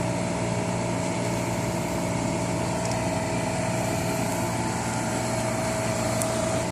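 Cold room refrigeration unit running, a steady mechanical hum with a steady whine, unchanged throughout and cut off abruptly at the end.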